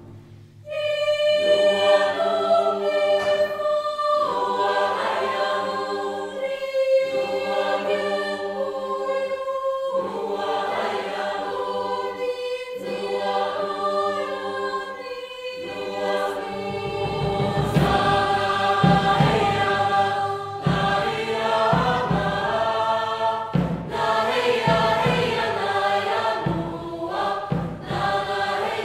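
Mixed choir singing a joik-style choral piece in layered, sustained chords, coming in after a brief pause at the start. From about halfway, low drum beats join under the voices.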